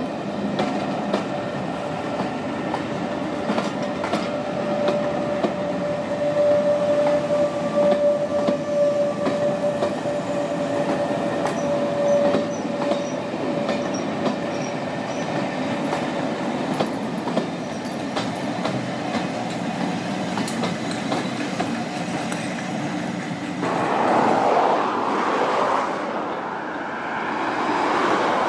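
Pullman passenger coaches rolling past at speed, their wheels clicking over the rail joints, with a steady wheel squeal held for several seconds in the middle. Near the end the sound changes abruptly to a rougher, louder noise.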